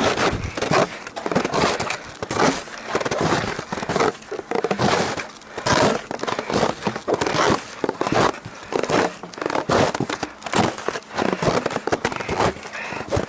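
Footsteps crunching through wind-packed crusted snow at a steady walking pace, about three steps every two seconds. Each step breaks the crust loudly, which makes it hard to approach game unheard.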